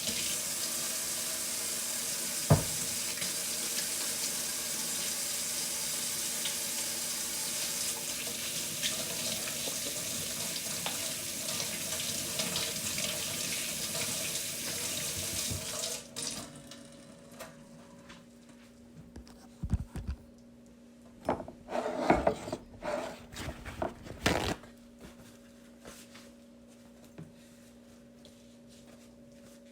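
Kitchen tap running into the sink, turned off a little over halfway through. Then a few scattered knocks and clatters, with a faint steady hum underneath.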